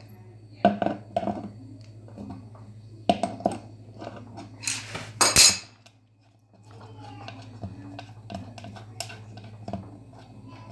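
Metal clinks and knocks as tools and parts are handled, with two longer scraping rushes about five seconds in, over a steady low hum.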